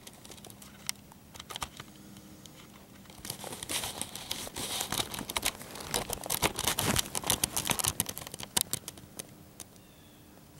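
Close rustling and crackling handling noise as the camera is moved and swung around, heaviest from about three to eight seconds in, with scattered sharp clicks.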